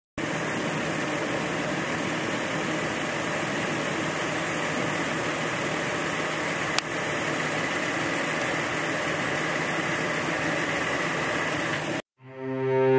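An engine idling steadily, with a single sharp click about seven seconds in; the sound cuts off abruptly about a second before the end.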